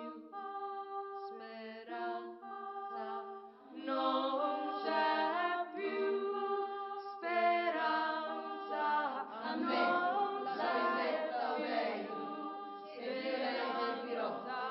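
Women's voices singing a cappella: at first long held notes, then from about four seconds in more voices join in overlapping lines, thickening into a dense, louder mass of sound.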